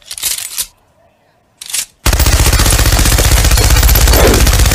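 Machine gun firing: two brief noisy bursts, then from about two seconds in, continuous rapid automatic fire, loud and evenly repeating.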